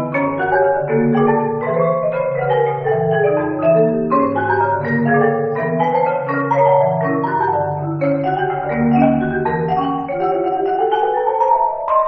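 A mallet percussion ensemble of marimbas playing quick, interlocking notes over held low notes.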